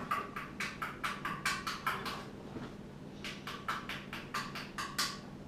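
Rapid light tapping, about four or five taps a second, in two runs with a short pause between them: a child's fingers tapping during Play-Doh play. A faint steady low hum lies underneath.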